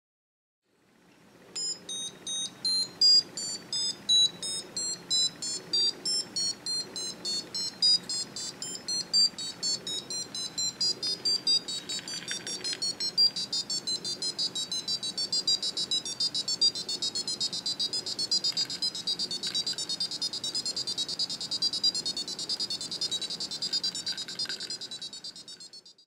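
Piezo speaker driven by a microcontroller touch board, sounding a string of short high-pitched beeps whose pitch steps up and down as a clip slides along a line of graphite conductive paint that acts as a variable resistor. The beeps start about two a second and grow faster until they nearly run together near the end.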